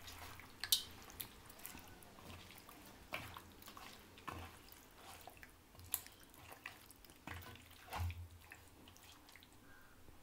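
A hand squishing and turning chicken pieces in a thick yogurt marinade in a stainless steel bowl: faint, irregular wet squelches with a few sharper clicks.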